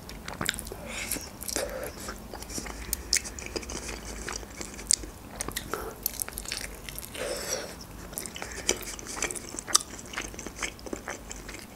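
A person chewing and biting into khinkali (Georgian meat dumplings) close to the microphone, with many small mouth clicks scattered throughout and a few louder ones.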